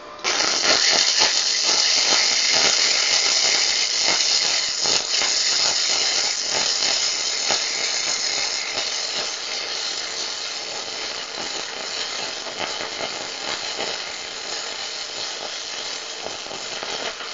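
MIG wire-feed welding arc from a Prostormer 3-in-1 welder: a steady hiss full of crackling and popping. It strikes suddenly at the start and cuts off sharply at the end.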